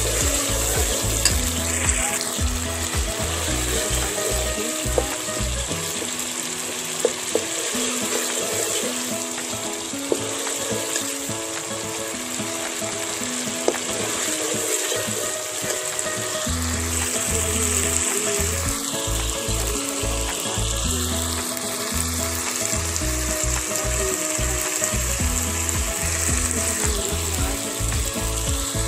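Oil sizzling steadily in a pan of frying spice paste, with a few sharp clicks. Background music with a low beat plays under it.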